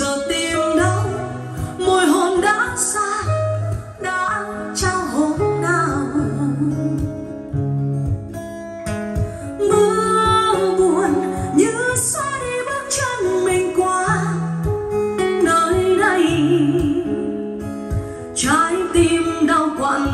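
Music: a song with a singer over guitar and bass, played as a test track for a speaker system.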